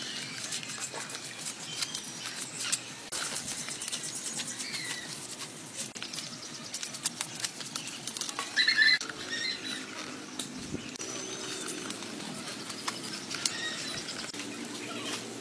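Irregular crackling and ticking from a charcoal fire under a spit-roasted whole pig, with faint high chirps and one short, loud squeak-like call about nine seconds in.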